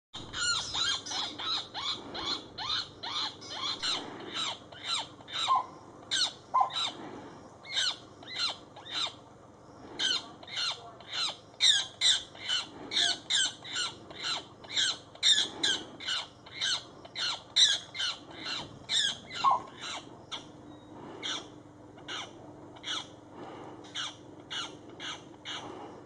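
Pied cuckoo giving a rapid, unbroken run of short distress calls, two to three a second, each dropping in pitch, while a hawk holds it down. The calls get quieter and more spaced out near the end.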